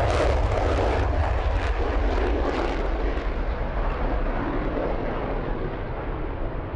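Panavia Tornado GR4's twin jet engines in afterburner during a takeoff climb-out: a loud jet roar with a ragged crackle over the first few seconds, fading steadily as the aircraft flies away.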